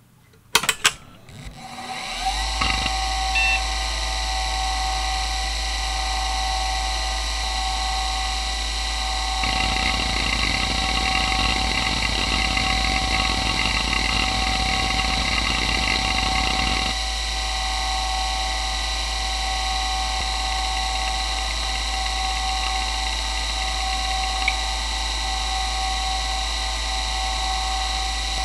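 Toshiba MK2024FC 86 MB 2.5-inch IDE hard drive (3200 rpm): a few sharp clicks, then it spins up and settles into a steady whine with a low hum, its spindle bearings described as not the best. About ten seconds in, a dense stretch of rapid head-seek chatter runs for around seven seconds, then it stops and the drive spins on steadily.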